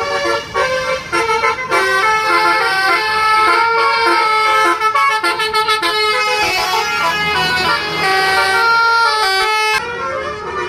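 Bus-mounted musical 'basuri' air horn (telolet horn) playing a quick tune, several horn trumpets sounding together and stepping from note to note.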